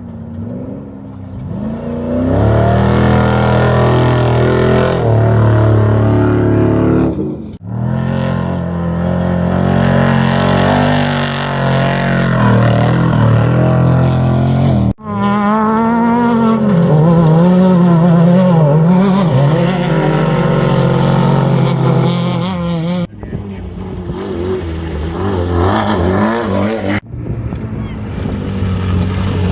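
Off-road race vehicles' engines running hard and revving, with engine pitch rising and falling as they pass. The sound breaks off and changes abruptly about every seven or eight seconds, with a shorter stretch near the end.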